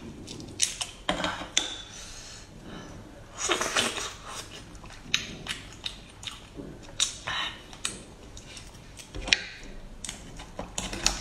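Oysters being shucked: a small knife scraping and prying against rough oyster shell and cutting the meat free of the shell, with shells clicking and clacking together. Irregular scrapes and sharp knocks.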